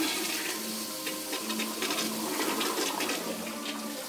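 Toilet flushing: water rushing and swirling down the bowl with scattered splashes, gradually easing off.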